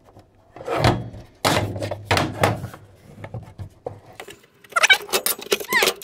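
Sheet-metal cover of a KVM switch being slid off its chassis by hand: scraping and knocks in the first half, then a rapid run of squeaky metal-on-metal rubbing near the end.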